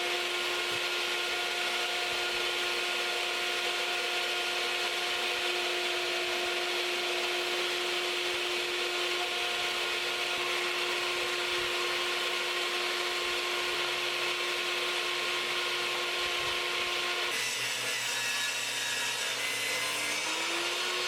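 Power saw running steadily while cutting through wood, with an even hum. About 17 seconds in, the sound changes.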